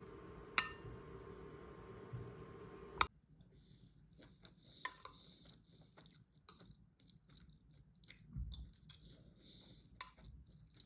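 A kitchen appliance humming steadily, with a sharp click about half a second in, then cutting off with a click about three seconds in. After that come scattered light clinks and handling sounds, like dishes and utensils.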